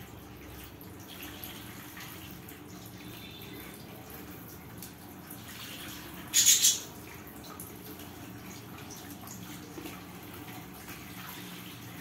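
Water spray pattering steadily onto a wire budgie cage, with one short, loud burst about halfway through.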